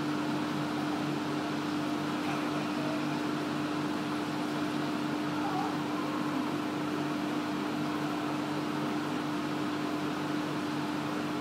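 Steady machine hum: one constant low tone under an even hiss, unchanging throughout.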